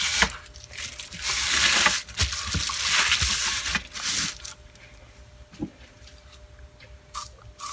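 A rag rubbing furniture polish over the body of a Craftsman cordless circular saw. It comes in a few rough, scratchy strokes, the longest about a second and a half. After about four and a half seconds there are only faint light handling knocks.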